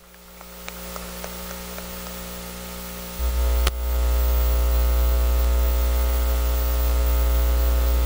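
Steady electrical mains hum from the public-address system, a low buzz with a stack of even tones, jumping louder about three seconds in with a sharp click just after, as microphones are handled and switched; a few faint ticks in the first couple of seconds.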